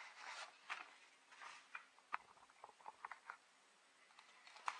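Faint rustling of paper instruction sheets being handled and set down, followed by a scatter of light clicks and taps from handling the kit box and its parts.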